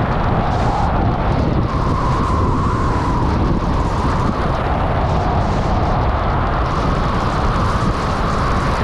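Heavy, steady wind rumble on a GoPro Hero9's microphone at about 75–80 km/h downhill, mixed with the hiss of skis running on packed groomed snow.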